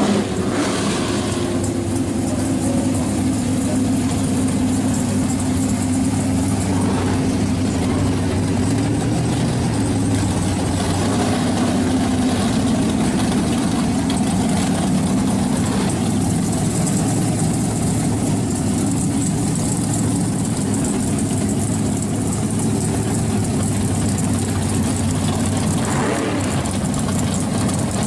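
Drag car engines idling steadily, with a deep, even engine note.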